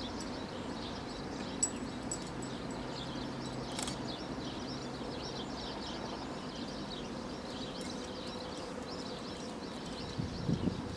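Small birds chirping over a steady outdoor background hiss, with a few sharp faint clicks and a low thump about ten and a half seconds in.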